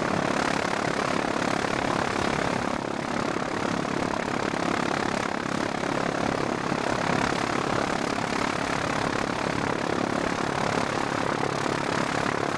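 Steady drone of a light propeller aircraft's engine running, unchanging throughout.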